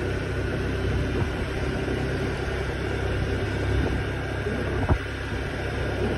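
A motor scooter's small engine runs steadily at cruising speed with road and wind noise, heard from the rider's seat. A single sharp knock comes about five seconds in.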